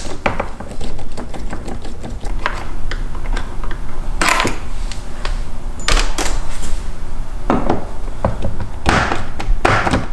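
Hand screwdriver clicking and scraping as T20 Torx screws are backed out of a car door panel. Several short, louder scuffs of handling come at intervals.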